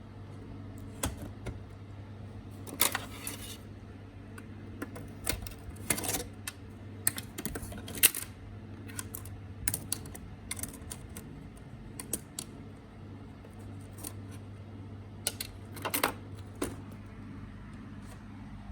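Irregular clicks, taps and short rattles of small hard parts being handled during laptop disassembly: plastic panels, screws and tools knocking on the case. Underneath runs a steady low hum.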